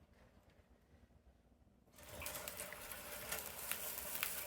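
Rustling and light clicks as a collapsible pull-up green screen is handled, starting about two seconds in after near silence.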